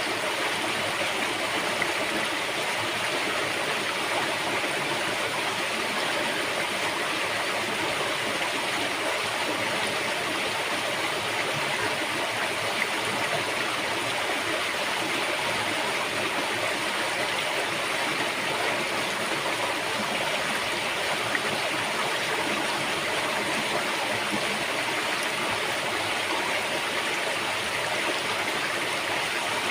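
River water rushing and splashing over rocks, a steady unbroken flow.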